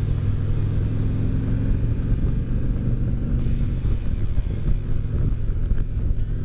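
Harley-Davidson touring motorcycle's V-twin engine running steadily under way, with an even rush of wind and road noise over it.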